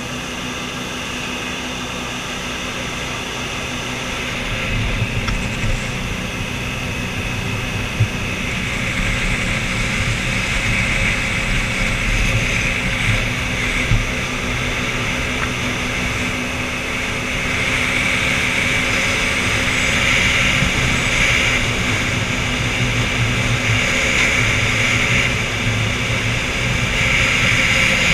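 New Zealand-style jet boat running at speed: a steady engine drone over the rush of water along the hull. It grows louder about four seconds in and again around seventeen seconds.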